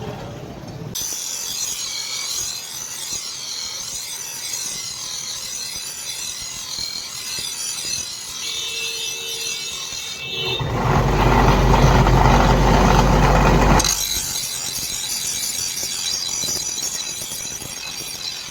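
Steady abrasive scraping on a steel knife blade. A few seconds past the middle, a much louder, deeper rushing noise takes over for about three seconds, then the scraping returns.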